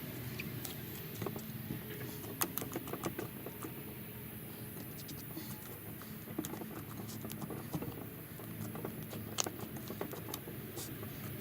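Homemade slime made with glue and Model Magic being mixed and worked by hand, giving irregular small sticky clicks and pops.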